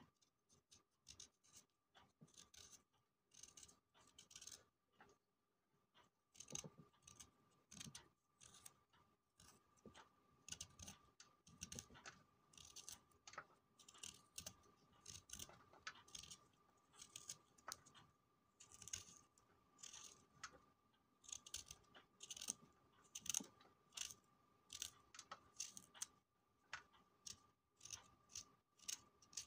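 Small knife scraping and peeling the skin off a fresh dandelion root: faint short scraping strokes, about one or two a second.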